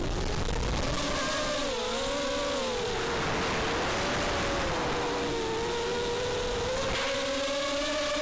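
Racing quadcopter's brushless motors (Cobra 2204 1960kv) and 5-inch bullnose props whining, the pitch rising and falling with the throttle and dipping about two seconds in, over a rush of wind noise.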